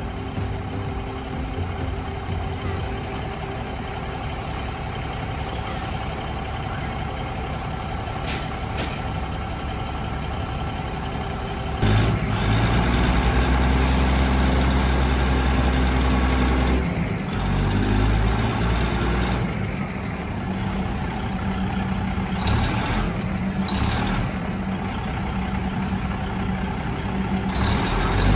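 Diesel train engine running at a steady speed with a low, even drone. About twelve seconds in it grows abruptly louder and deeper, eases back a few seconds later, and the level shifts a few more times.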